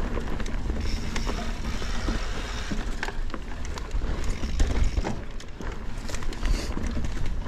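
Transition Spur mountain bike rolling along a dirt singletrack: a steady low rumble of tyres and wind, with frequent short clicks and rattles from the chain and frame over small bumps.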